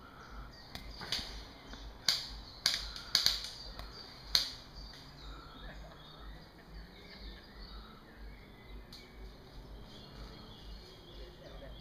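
Sharp snapping shots from airsoft guns: a scattered handful between about one and four and a half seconds in, the loudest close together, and one more near nine seconds.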